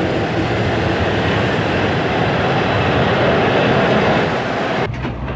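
JNR C62 2, a 4-6-4 steam locomotive, blowing off steam with a steady loud hiss that swells slightly and then breaks off sharply near the end, leaving a lower rumble.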